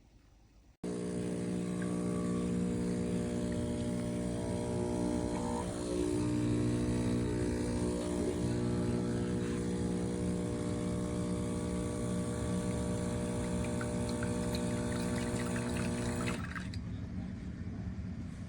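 Espresso machine pump running with a steady electric buzz and the rush of water for about fifteen seconds, starting suddenly about a second in and cutting off near the end.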